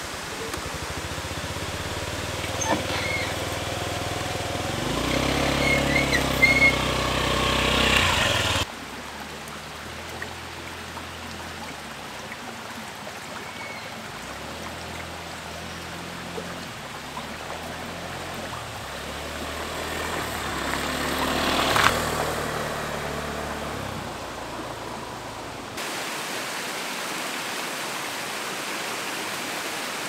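Honda Zoomer scooter's single-cylinder four-stroke engine running and growing louder, then cutting off sharply. After the cut the scooter is heard riding along a dirt trail, coming closer, passing loudest about two-thirds through, then fading. A steady outdoor hush ends it.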